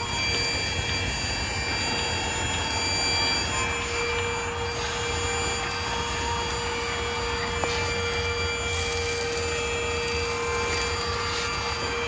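Micol cordless stick vacuum running with its crevice tool on a car's floor carpet and rubber mat: a steady motor whine over the rush of air.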